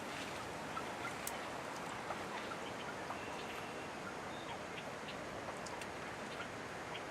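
Faint wild turkey calls over a steady outdoor hiss, with scattered light ticks and a short high chirp about three seconds in.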